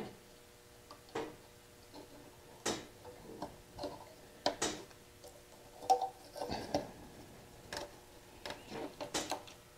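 Irregular small clicks and handling noises of hands pushing wire connectors onto the terminals of a motorcycle fuel sending unit.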